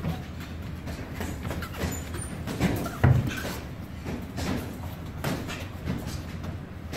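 Scattered thuds and slaps of boxing gloves and feet on the ring canvas during sparring, the heaviest thud about three seconds in, over a steady low hum.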